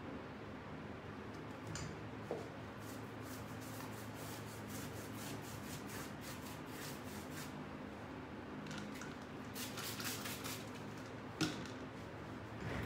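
A paintbrush dabbing and brushing brown paint onto crumpled paper towel glued over a cabinet. It makes two runs of soft, quick, scratchy strokes, and there is a single sharp tap near the end. A low steady hum runs underneath.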